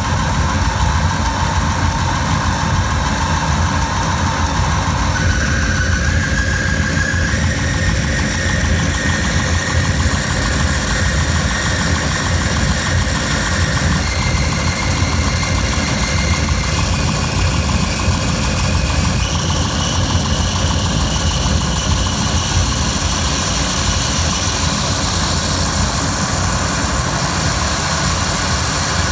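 Dense industrial noise drone, processed live from the sound of glass rattling inside a boiling pan: a steady heavy low rumble with a thin tone above it that steps up in pitch every few seconds.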